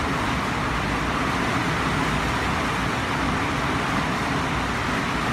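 Heavy rain pouring down hard, a steady, even hiss.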